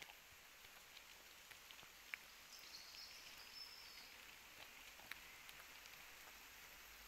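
Very faint woodland ambience: a small stream trickling steadily under scattered light ticks, with a short high bird call about two and a half seconds in.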